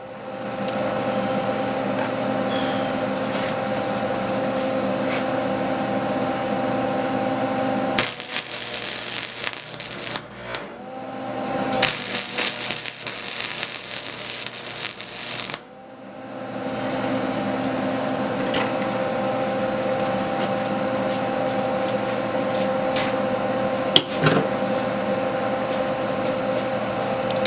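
Electric power tool working steel, running steadily with a hum and a harsh hiss. About 8 and again 12 seconds in, it gives way to two louder, brighter stretches of rasping noise, with a few sharp clicks near the end.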